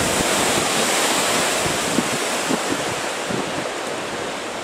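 Hurricane wind blowing hard in a steady rush, buffeting the microphone, easing slightly toward the end.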